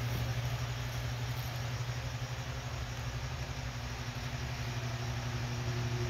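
Lasko 1885 18-inch Cyclone pedestal fan running: a steady low motor hum under an even rush of air as the head turns.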